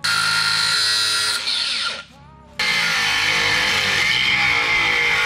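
Angle grinder cutting steel brackets: a loud, steady high whine that winds down about two seconds in and starts again about half a second later. Guitar music plays underneath.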